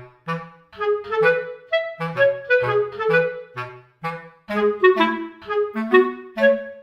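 Background music: a melody of short, separate notes, a few a second, over a moving bass line.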